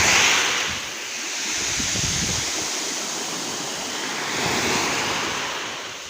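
Sea waves washing onto the shore, surging at the start and again about five seconds in, with a little wind on the microphone.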